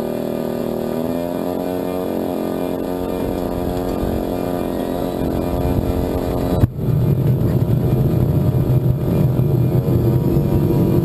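Radio-control model jet's turbine engine starting: a steady whine of several tones as it spins up. About two-thirds of the way in there is a sudden pop, and it turns into a louder, rougher rushing noise as the turbine lights.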